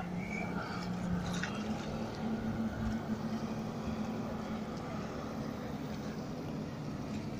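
Motorboat engine running steadily while the boat crosses open water, a distant even hum that rises slightly in pitch about a second and a half in.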